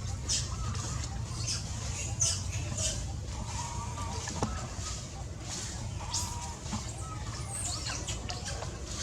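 Steady low rumble with scattered short, high-pitched animal chirps and squeaks, and a few brief mid-pitched calls.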